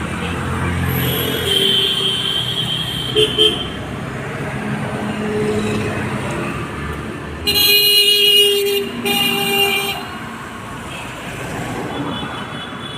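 Road traffic passing, with a vehicle horn sounding twice about seven and a half seconds in: a long blast, then a shorter one.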